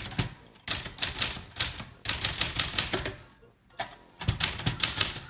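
Typewriter typing in quick runs of sharp key strikes, several a second, broken by short pauses.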